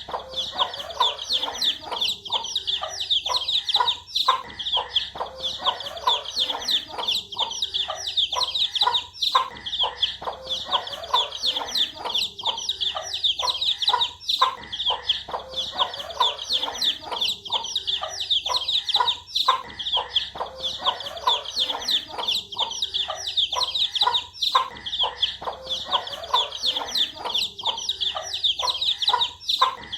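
A flock of baby chicks peeping non-stop, a dense high-pitched chorus of overlapping short peeps with lower clucking notes mixed in.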